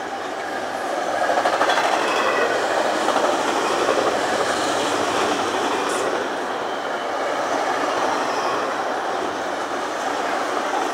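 Union Pacific double-stack intermodal freight train's well cars rolling past at speed: a steady rumble and clatter of steel wheels on rail, a little louder from about a second in.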